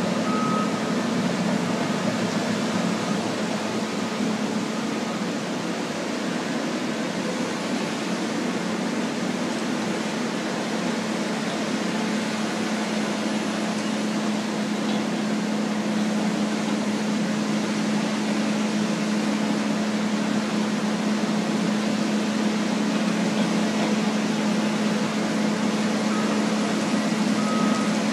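Diesel wheel loaders working beach sand, a steady engine hum over a constant rushing noise. A backup alarm beeps briefly at the start and again near the end.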